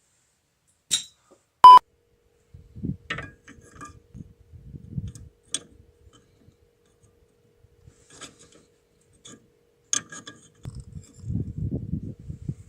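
Metal tools and brake parts clinking and knocking during a brake-pad change, with a short, loud electronic beep about two seconds in and some low scraping handling noise near the end.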